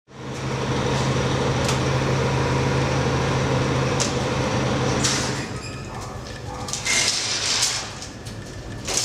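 An old lift with a collapsible metal scissor gate: a steady machine hum for about five seconds with a few light clicks, then the folding gate rattling and clattering as it slides.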